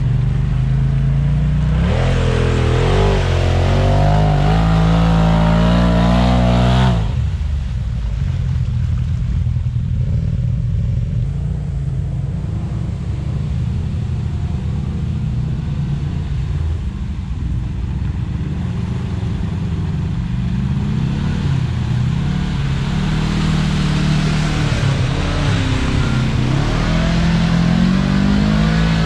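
Side-by-side UTV engine running on the trail, revving up and down with the throttle, with an abrupt change in the sound about seven seconds in.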